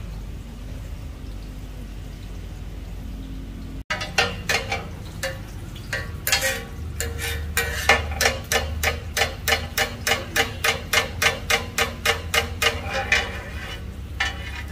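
A metal utensil striking a metal cooking pan at a street-food stall, the strikes settling into an even rhythm of about three a second. For the first four seconds there is only a steady low hum, then the strikes start abruptly.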